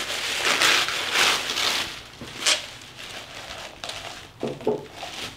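Crinkle-cut shredded paper packing filler rustling and crackling as a hand digs through it. The rustling is loudest for the first two seconds, then thins to scattered crackles with a sharp click partway through.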